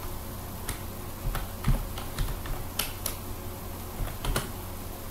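Computer keyboard keys being pressed, a dozen or so short clicks at irregular spacing, some in quick pairs, while a shell command is edited and typed.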